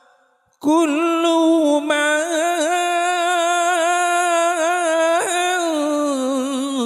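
A single voice singing a long, ornamented Arabic sholawat line without drums. It starts after a brief silence about half a second in.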